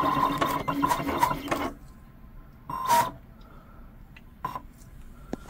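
Siser Juliet vinyl cutter's motors whirring and ticking as it makes a test cut. The motors stop about a second and a half in, then move again in one short burst about three seconds in, followed by a few faint clicks.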